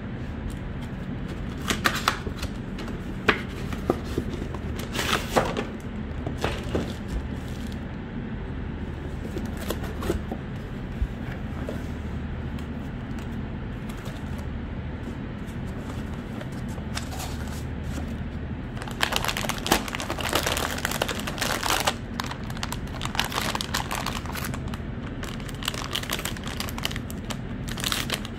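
Handling of a cardboard graphics-card box, with scattered taps and scrapes. From about two-thirds in there is a dense run of plastic crinkling as the card, wrapped in its plastic bag, is lifted out of the foam packing.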